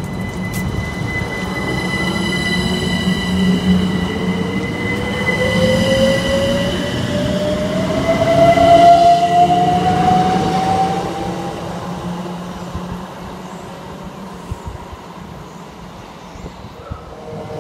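Electric train accelerating past, its traction motors whining steadily up in pitch. The sound grows to its loudest about nine seconds in, then fades as the train moves away.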